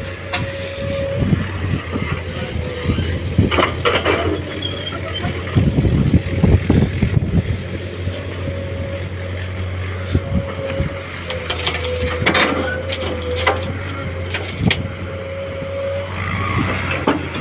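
Komatsu PC210 hydraulic excavator's diesel engine running under load while its bucket digs and dumps rock and soil, with clattering thuds of rocks scraping and landing in a steel tipper body, the loudest about six seconds in and again near twelve seconds. A steady whine comes and goes over the engine hum.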